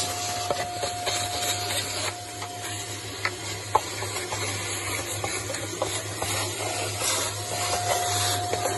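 Vacuum cleaner running steadily with a constant whine, its hose nozzle sucking mouse droppings and dust off a car engine's cylinder head around the spark plug holes. A few small clicks along the way, the sharpest just under four seconds in.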